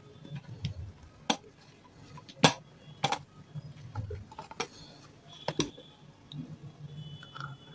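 Fingers and long nails rummaging in a plastic tub of wet paste and hard chunks of half-roasted nakhumat. There are about five sharp clicks of nails and lumps against the plastic, spread across several seconds, with soft handling noise between them.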